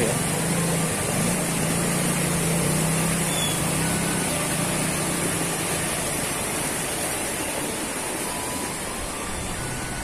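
Steady rushing of a small stream, with a low engine hum that wavers and fades out about halfway through.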